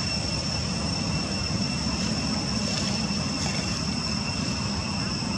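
Steady outdoor background drone: a constant low rumble with a thin, unbroken high-pitched whine above it, unchanging throughout.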